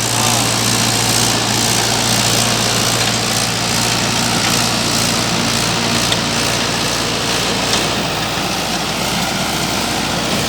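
Mahindra 585 DI XP tractor's four-cylinder diesel engine running steadily under load in low-range first gear while tilling dry soil. A constant engine drone sits under a dense churning noise.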